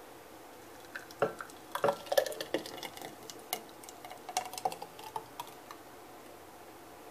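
Thick smoothie being poured from a blender jar into a drinking glass: an irregular run of clinks and knocks of glass on glass, beginning about a second in and dying away shortly before the end.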